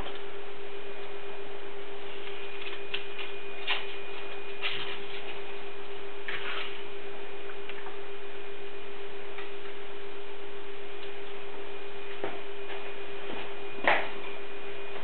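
Steady electrical hum with a faint high whine, broken by a few light clinks of utensils on kitchenware and one sharper knock near the end.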